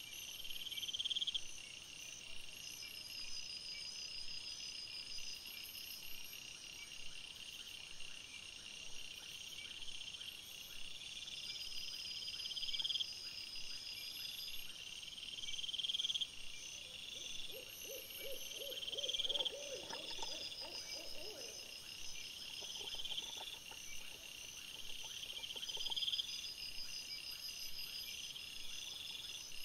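Night insects chirping: a rising trill repeats about every two seconds, with a fainter, higher pulsing above it. A little past halfway, a lower pulsing call sounds for a few seconds.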